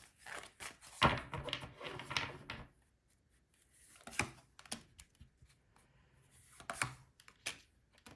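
A tarot deck being shuffled by hand: a quick run of crisp card flicks for about two and a half seconds, then a few single card snaps as cards come out.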